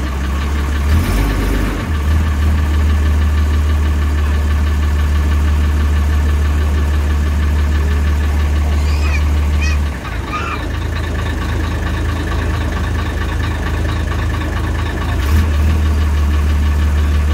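Inboard engine of a wooden river ferry boat running steadily with a deep drone. The drone drops back about ten seconds in and comes up again about fifteen seconds in. A few short bird calls come through near the middle.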